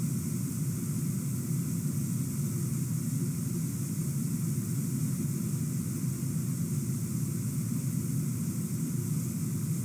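Steady low background noise with a faint high hiss and no distinct sounds.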